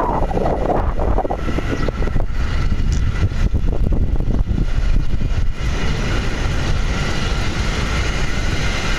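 Wheelchair rolling fast downhill on pavement: a steady rumble of the wheels and wind rushing over the phone's microphone, with scattered knocks from bumps in the road. A faint steady whine joins in about halfway through.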